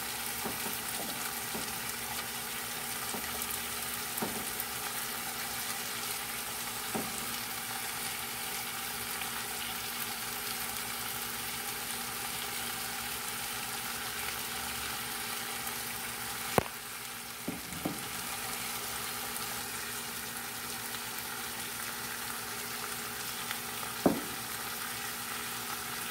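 Potato strips and bell pepper sizzling steadily in hot oil in a wok. A few sharp knocks break through: two close together about two-thirds of the way in and one near the end.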